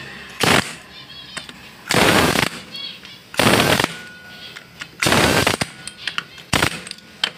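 Socket ratchet clicking in short bursts, about five times, while the clutch pressure plate's spring bolts are tightened down.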